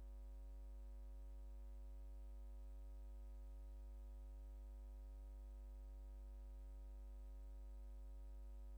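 Steady low electrical mains hum with a faint hiss and no other sound, typical of electrical interference picked up by the recording or transfer equipment.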